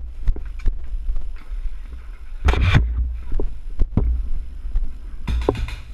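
Low rumble with irregular knocks and rustling from movement against a body-worn action camera, with two louder bursts of rustling and knocking about two and a half and five and a half seconds in.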